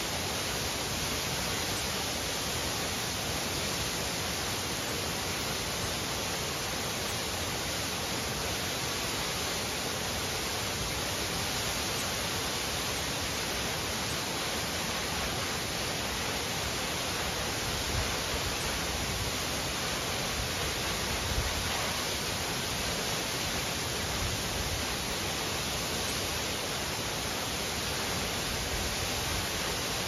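Tall waterfall plunging down a rock face: a steady, unbroken rush of falling water.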